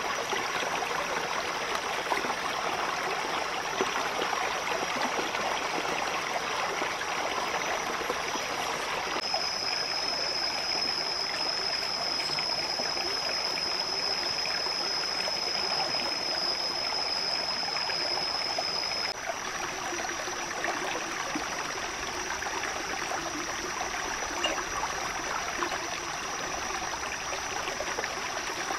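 Shallow rocky stream flowing, a steady rushing and trickling of water. A thin, steady high-pitched tone sits over it, louder from about nine seconds in until about nineteen seconds.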